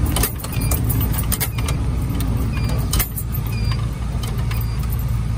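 Fire engine's diesel engine running steadily, heard from inside the cab. Sharp knocks and rattles come through as the truck travels over a rough dirt track.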